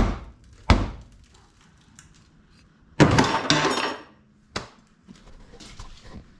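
Blows against the Ford Ranger's sheet-metal body: two sharp thunks, then a louder crunching clatter about three seconds in, and one more knock a little later.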